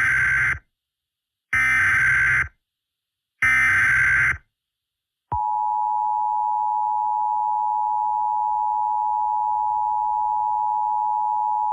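Emergency Alert System tones: three bursts of SAME header data, a buzzy digital warble of about a second each and about a second apart, then the two-tone EAS attention signal starting about five seconds in and holding steady.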